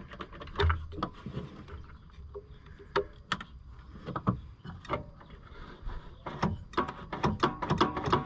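Irregular small clicks and light knocks of hand work on an engine's wiring with a test light, coming thicker and louder in the last couple of seconds.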